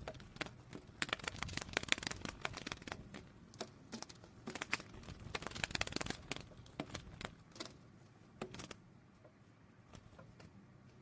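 Crinkling and rustling of handled packaging: a run of quick irregular crackles and small clicks that grows sparse near the end.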